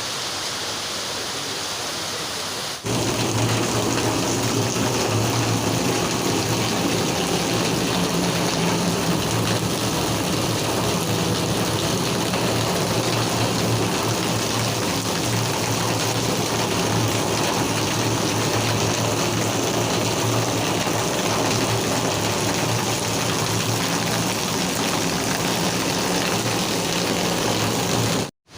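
Steady rain, a loud even hiss of falling water. About three seconds in it turns suddenly louder and fuller, with a deeper rush of water, and it cuts off just before the end.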